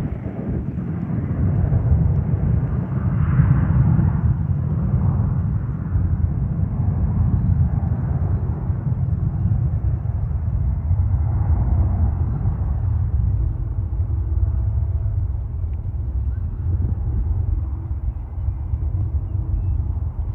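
Boeing 757-300 jet engines running, a loud, steady low rumble that holds at an even level.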